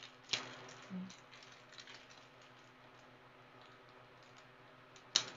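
Thin plastic mailer bag crinkling and crackling as fingers pick and tear it open, with scattered small ticks and one sharp crackle near the end.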